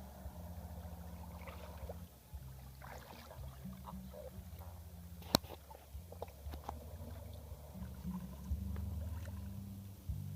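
Small boat's engine running with a low, pulsing chug that shifts up and down in speed. A single sharp click about five seconds in.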